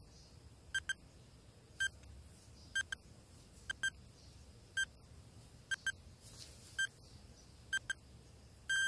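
Countdown timer beeping: short, high electronic beeps about once a second, some in quick pairs, then one long beep starting near the end as the count runs out.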